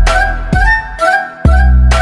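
Background music with a heavy bass beat, drum hits and a short repeating high melody; the bass and beat drop out briefly about a second in, then come back.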